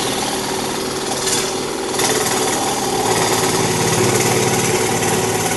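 Electric saw running steadily as it cuts through wood.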